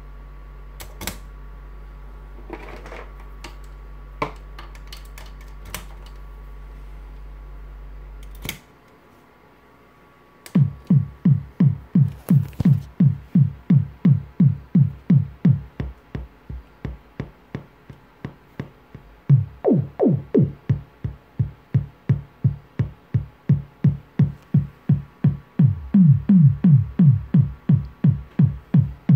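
Modular synth kick drum made by pinging a Mutable Instruments Ripples filter with envelopes from Tides: a steady run of short low thuds, each dropping quickly in pitch, about two a second, softer for a few seconds in the middle and then loud again. Before the kicks start, a low hum with a few sharp clicks of patch cables being plugged, the hum cutting off about eight seconds in.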